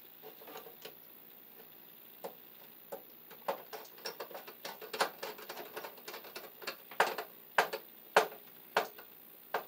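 Irregular clicks and taps of a stripped neutral wire and hands working inside a metal sub panel box. The clicks are sparse at first, then come thicker from about three seconds in, with the sharpest near the end.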